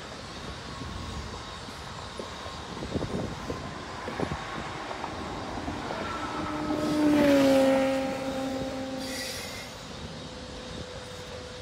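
Double-stack intermodal train of container well cars rolling past, its wheels clicking over the rail several times about three to four seconds in. Around seven seconds in, a louder passing whine swells with a tone that dips in pitch, then fades.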